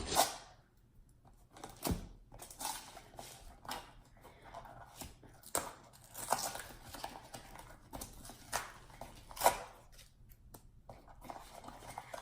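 Cardboard baking soda box being torn at and pried open, with irregular scrapes, rips and taps as it resists opening.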